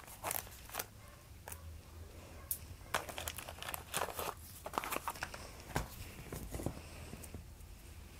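Cigarette pack being handled and a cigarette taken out: faint crinkling and rustling of the pack with scattered small clicks and taps.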